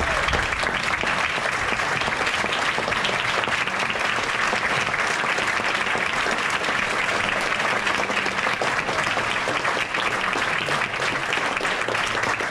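Audience applauding, a steady sustained ovation with many hands clapping.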